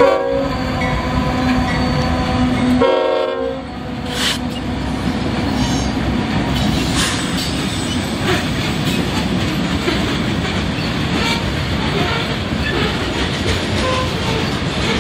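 Passing freight train: a Union Pacific diesel locomotive's engine hum, a brief tonal blast about three seconds in, then covered hopper cars rolling by with a steady rumble and wheels clacking over the rail joints.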